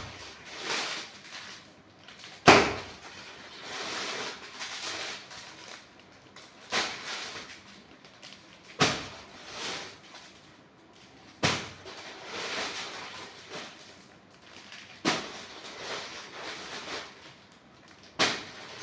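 Handling of a parcel and its contents: rustling and swishing, broken by a sharp snap or knock every two to three seconds.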